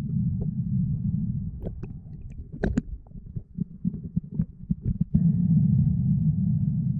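Muffled underwater sound through a GoPro's waterproof housing: a dense low rumble of water and movement. The rumble thins out between about two and five seconds in, where a scatter of sharp clicks and crackles sits, then comes back strongly.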